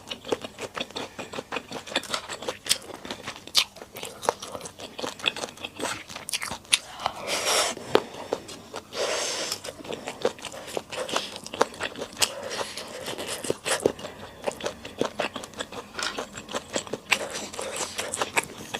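Close-miked eating sounds of a person chewing and biting into Sichuan skewer hotpot: a dense run of wet clicks and smacks, with two longer, noisier stretches about seven and nine seconds in.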